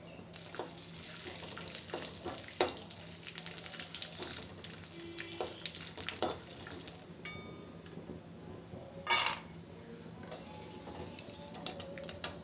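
Peanuts frying in a little oil in an aluminium kadhai: a light sizzle with scattered clicks and scrapes of a perforated metal spoon stirring them against the pan. The sizzle eases about seven seconds in, and there is one short clatter about nine seconds in.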